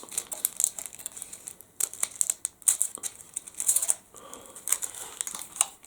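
Easter egg packaging crinkling and crackling in uneven bursts as it is pulled and torn open by hand.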